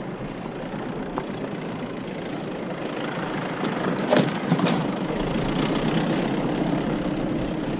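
Toyota pickup truck driving along a dirt track, its engine running and tyres on the dirt, getting a little louder as it comes near. There is a brief clatter about four seconds in.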